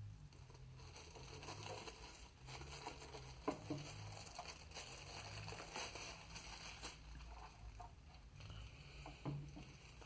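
Faint rustling and crinkling of a thin plastic bag as a metal-cased bench power supply is slid out of it, with a couple of light knocks as the case is handled and set down on a wooden desk, one about three and a half seconds in and one near the end.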